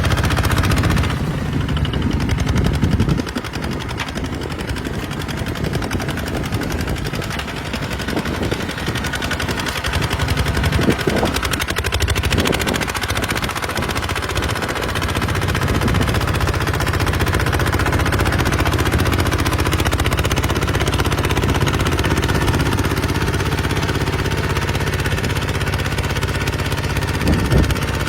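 Kubota RT140 single-cylinder diesel engine of a small bulldozer running under load while plowing, a rapid, steady pulsing beat. Its sound shifts a few seconds in and again about halfway through.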